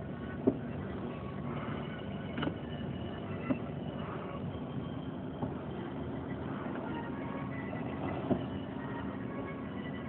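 Distant fireworks going off, heard as about five short muffled bangs through closed car windows, over a steady low hum in the car.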